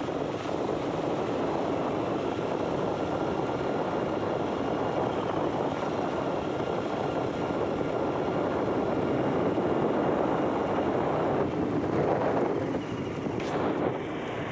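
Motor scooter riding at speed on an open road: a steady rush of engine and wind over the microphone. A few handling knocks come near the end as the phone is tilted down.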